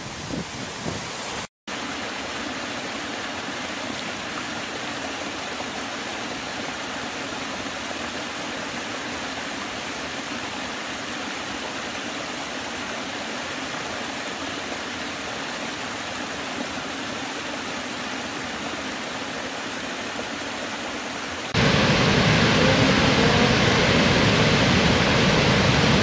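Rushing water of waterfalls: after a brief blank gap about a second and a half in, a small cascade over mossy rocks runs with a steady, even rush. About 21 seconds in it cuts suddenly to the much louder, fuller rush of a large waterfall.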